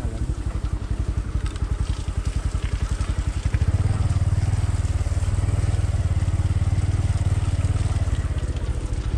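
Motor vehicle engine running close by with a steady, rapid low pulsing, growing louder about three and a half seconds in.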